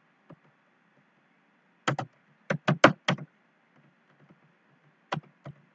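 Computer keyboard being typed on in short, uneven bursts of keystrokes: a pair about two seconds in, a quick run of four just after, then two more near the end.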